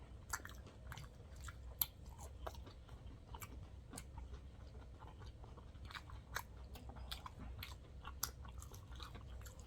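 Close-miked chewing and biting of food, heard as soft, irregular mouth clicks and smacks.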